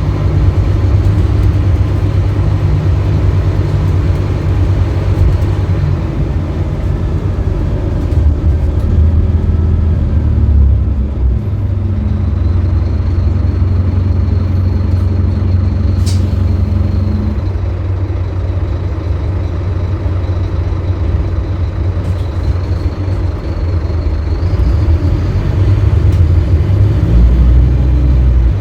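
Scania K310UB city bus's five-cylinder diesel engine running under way, its pitch shifting several times as it pulls and eases off. A faint high whine comes in about twelve seconds in, with a single sharp click near the middle.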